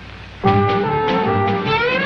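Orchestral cartoon score. After a brief quiet moment, brass-led music comes in sharply about half a second in over a pulsing bass beat, and a rising pitch glide starts near the end.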